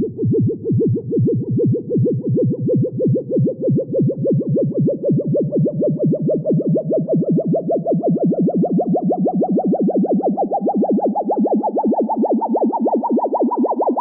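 Vintage 1950s-style sci-fi spaceship taking off: a synthesized warbling tone pulsing a few times a second, slowly rising in pitch while the pulsing gets faster.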